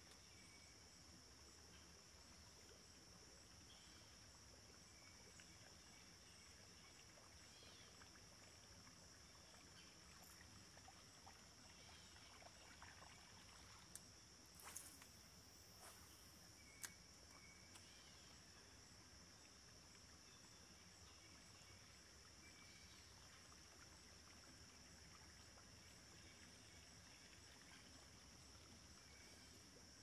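Faint, steady insect chorus: an even, high-pitched trill of crickets. A few light clicks come about halfway through.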